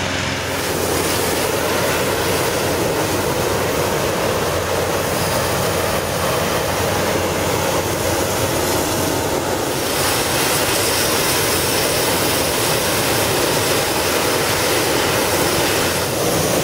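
Hot-air balloon's propane burner firing steadily into the envelope during hot inflation, a dense rushing noise that eases briefly and comes back a little louder about ten seconds in.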